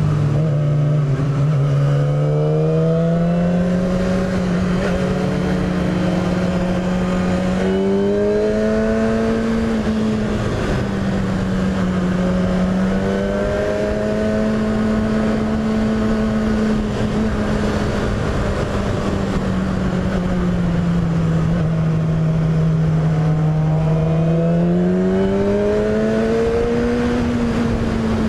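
Sport motorcycle engine running at road speed, its pitch slowly rising and falling several times as the throttle is rolled on and off. Steady wind rush sits underneath.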